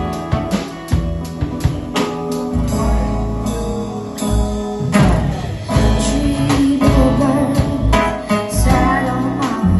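Live band playing: strummed acoustic guitar, keyboard and drum kit, with a woman singing into a microphone, her voice coming in about halfway through.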